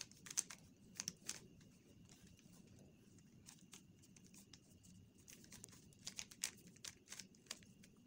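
Faint plastic clicks of a stickerless 3x3 puzzle cube's layers being turned by hand: a few in the first second or so, then a quicker run of clicks from about five to seven and a half seconds in.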